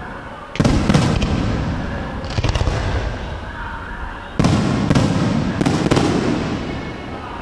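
Aerial firework shells bursting: two big booms about four seconds apart, each followed by crackling and a long fading rumble.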